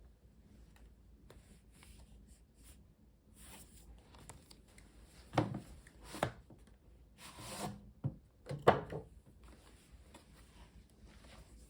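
Headphone box packaging being handled: rubbing and sliding, with a few light knocks about five, six and nine seconds in.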